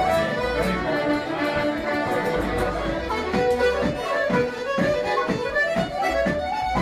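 Traditional Irish tune played on fiddle and accordion, with a steady beat.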